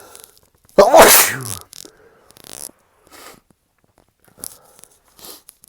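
A person sneezes once, loudly, about a second in, the sneeze falling in pitch as it trails off. This is part of an allergic sneezing fit, and a few short, quieter breaths follow.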